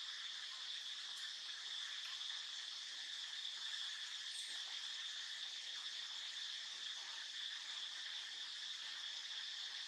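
Steady chorus of insects, a continuous high-pitched drone that holds without a break.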